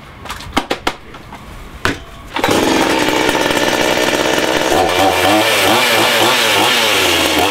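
Petrol two-stroke chainsaw running loudly. It starts abruptly about two and a half seconds in, after a few faint clicks and knocks, and its pitch rises and falls as it revs from about five seconds in.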